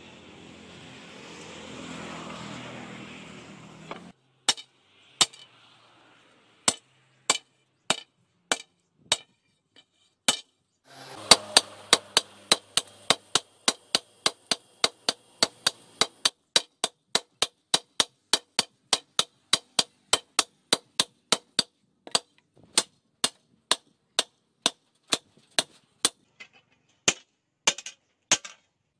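Hand-hammer blows on red-hot spring steel resting on a steel-post anvil, forging a cleaver blade. A few spaced strikes come first, then a steady run of about two to three a second. It opens with the steady rush of the coal forge's electric blower while the steel heats, which stops about four seconds in.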